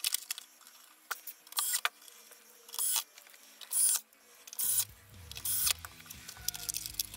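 Hands working on the plastic turret ring and hull parts of an RC tank, making clicks and several short rasping noises. Background music comes in a little past halfway.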